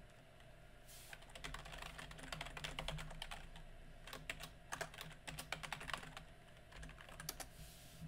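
Typing on a computer keyboard: irregular runs of key clicks starting about a second in, as a login email address and then a password are typed.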